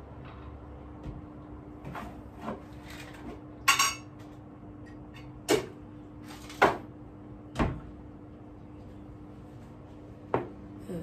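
Glasses and dishes being set down on a table: separate clinks and knocks every second or two, one about four seconds in ringing briefly like glass. A steady low hum runs underneath.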